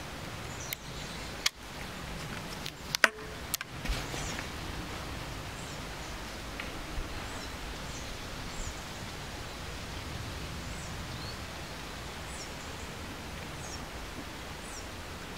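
A few sharp clicks and knocks in the first four seconds, the loudest about three seconds in, from the PCP air rifle being handled, then steady outdoor background with faint, brief bird chirps.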